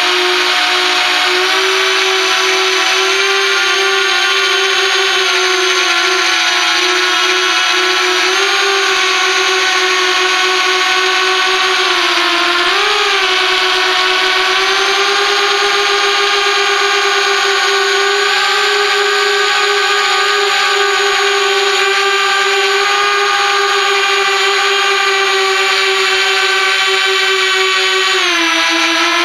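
Small 180-size FPV racing quadcopter's motors and propellers whining steadily at a high pitch, heard up close from the onboard camera. The pitch wavers briefly about halfway through and shifts again near the end.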